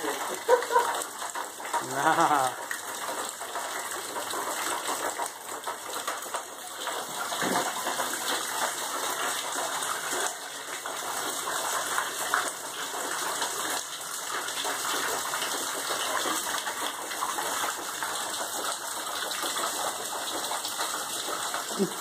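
Water pouring and dripping through a leaking plaster ceiling onto the floor below: a steady splashing patter. The water is thought to be coming from an upstairs shower.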